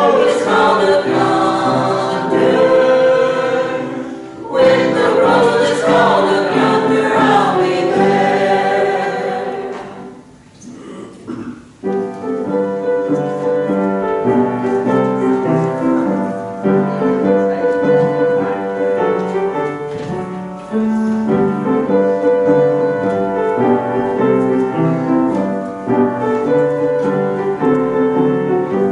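A small church choir singing a hymn with accompaniment. The singing ends about ten seconds in, and after a brief lull a keyboard instrument plays on alone.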